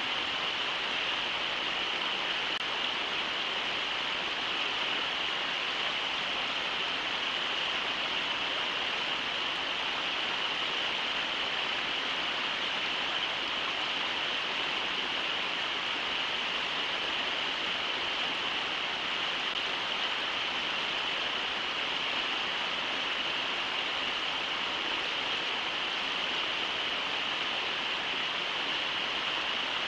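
Brooks River water rushing steadily, an even unbroken hiss of flowing water.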